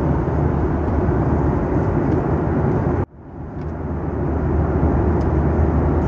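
Steady in-flight cabin noise of a Boeing 737-900ER heard from a window seat beside the wing: the deep drone of its CFM56-7B turbofan engines and the rush of airflow. About three seconds in the sound drops out suddenly and fades back up over about a second.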